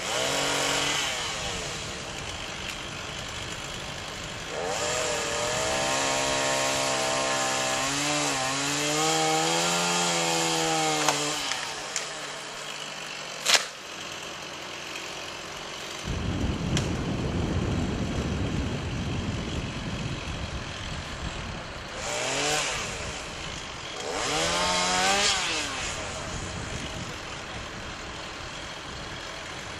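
Chainsaw revving in several bursts as it cuts pine branches, its engine note rising and falling under load. There is a single sharp crack about halfway through. A low steady rumble begins shortly after it.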